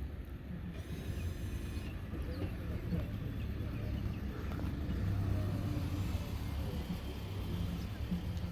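Low, steady rumble from a car, with no sharp hiss or burst.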